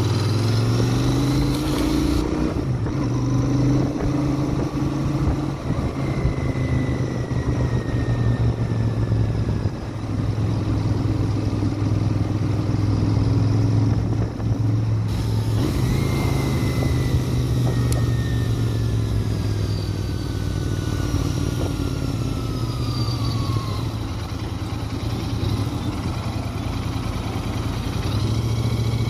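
Royal Enfield Interceptor 650's 648 cc parallel-twin engine and exhaust running on the move, rising in pitch in the first couple of seconds and then holding steady. A faint high whine falls slowly in pitch twice.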